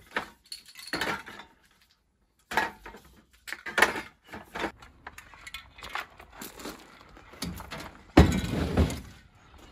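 Metal spray paint cans clinking and knocking against each other as they are handled in plastic milk crates. Just after eight seconds comes the loudest sound, a heavy thump and rattle as a crate full of cans is set down in a pickup truck bed.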